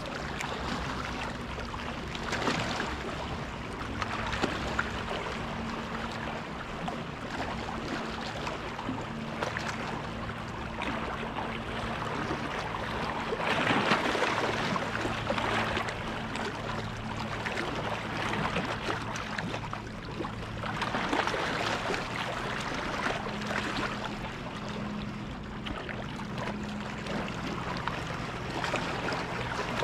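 Small waves lapping and washing against a rocky lakeshore, surging louder a few times, over the steady low drone of motorboat engines out on the lake.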